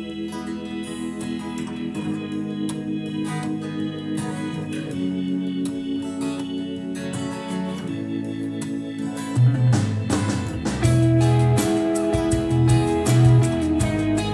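Instrumental music with held chords played through a pair of JBL LSR305 studio monitors and picked up by a recorder in the room; about two-thirds of the way through a strong bass line comes in and the music gets louder.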